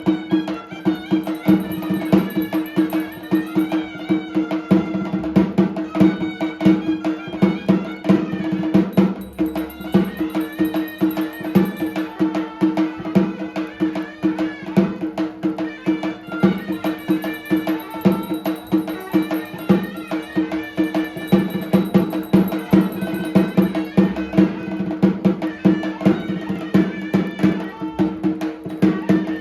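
Traditional music: fast, continuous percussion over a steady low drone, with a melody line above.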